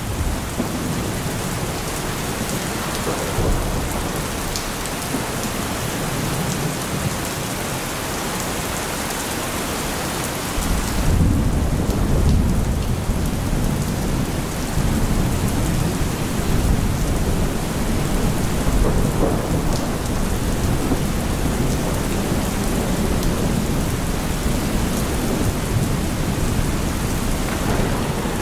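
Steady rain falling in a thunderstorm, with a low rumble of thunder that comes in about a third of the way through and rolls on under the rain.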